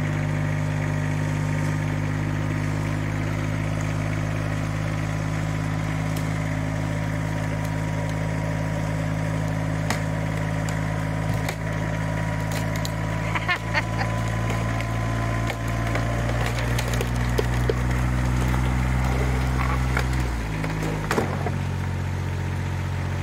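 A vehicle engine runs steadily under load while a strap pulls on a barn's old board wall. Wood cracks and splinters about halfway through and again near the end as the wall section gives way and comes down, and the engine note shifts as it falls.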